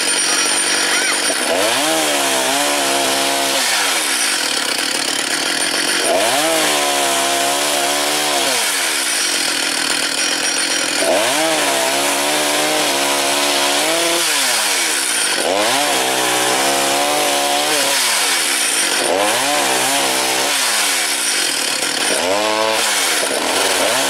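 Petrol chainsaw mounted on a hinged log-cutting stand, running at full throttle and lowered into a log six times. With each cut of two to three seconds its engine note sags under the load, then picks back up.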